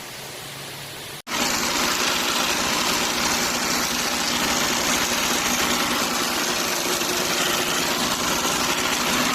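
Cummins X15 (ISX) inline-six diesel engine running steadily, with the timing-gear noise that the owner puts down to badly adjusted camshaft gears. A quieter hiss at first, then the engine sound cuts in abruptly and loud about a second in.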